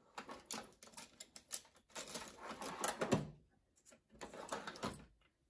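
Pens and markers rattling in a drawer of a steel Kennedy tool chest, then the drawers sliding shut and open, with a run of light clicks and a firmer knock about three seconds in.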